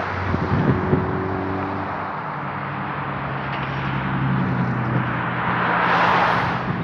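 Road traffic: car engines running and tyres hissing on asphalt, with one car passing close about six seconds in.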